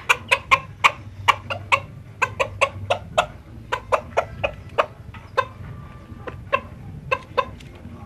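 Chicken clucking: short, sharp clucks in quick runs of about five a second, broken by brief pauses.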